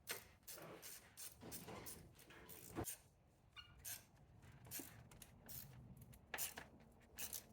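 Faint, irregular clicks of a ratchet tightening the 10 mm bolt on a car battery's hold-down bracket.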